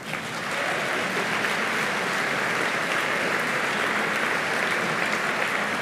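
Audience applauding: a steady mass of clapping that swells up within the first half second, holds even, and eases off slightly near the end.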